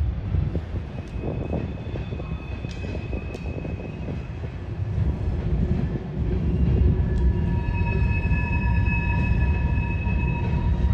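Train rolling slowly by with a steady low rumble and a few sharp clicks, then a steady high-pitched squeal from the wheels or cars through the second half.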